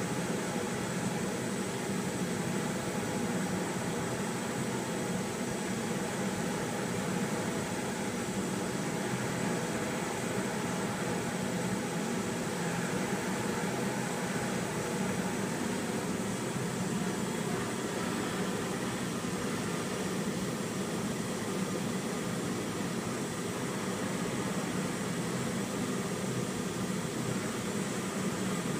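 Fume extractor fan over a brazing hearth running steadily, together with the hiss of a gas brazing torch flame heating a ladle of pewter to melt it.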